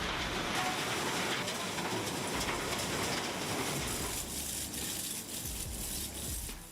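Electronic-waste shredder running and grinding material: a dense, steady, clattering machine noise.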